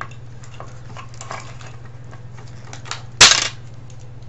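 Plastic shell of a cordless phone handset clicking as it is pried apart, then one loud sharp snap a little past three seconds in as the case's clips give way.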